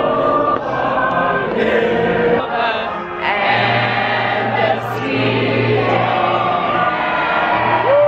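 A large group of voices singing together like a choir, over a held low note that enters about halfway through.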